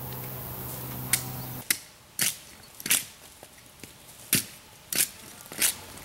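A hatchet chopping bark off a dead ash trunk: six sharp, separate strikes about half a second to a second and a half apart. Before them, a steady low hum cuts off suddenly about a second and a half in.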